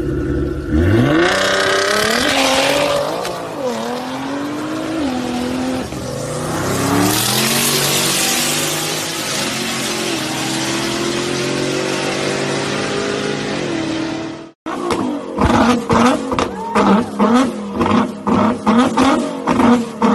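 Nissan GT-R R35's twin-turbo V6 exhaust running hard: the engine note rises sharply, wavers, then climbs steadily for about fourteen seconds. After a brief break it gives a rapid series of short throttle blips, about two a second.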